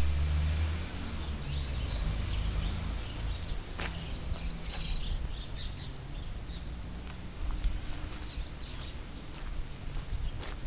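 Birds chirping now and then over a steady low outdoor rumble, with a sharp click about four seconds in.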